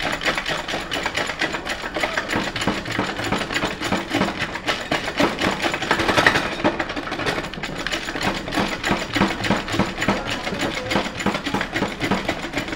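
Automatic transmission output drum rattling rapidly and continuously against its clutch pack of friction and steel plates as it is shaken with pliers, loudest about halfway through. The shaking lines up the frictions and steels with the drum underneath so the drum can settle into place.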